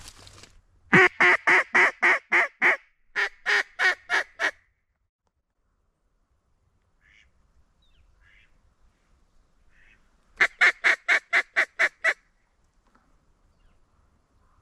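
Mallard quacks in loud, evenly spaced runs: about a dozen over the first few seconds, then a quicker string of about ten near the end, with a few faint calls in between.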